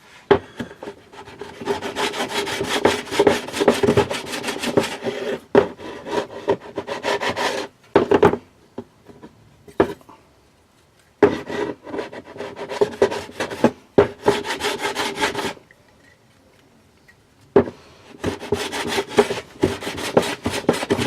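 Hand plane shaving the top of a small piece of wood held down by masking tape and super glue: quick, short scraping strokes in three bouts with pauses between, taking material off.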